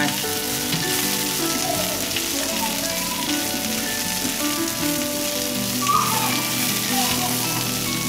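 Cicadas sizzling steadily in hot pork lard with onion and lemongrass in a frying pan over high heat, stirred quickly as they fry.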